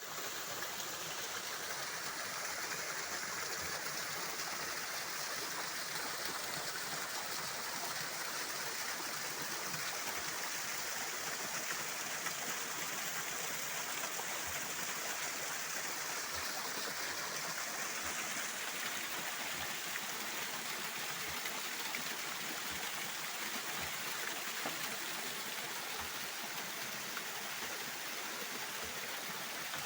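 Waterfall: falling water pouring steadily, an even, unbroken rush.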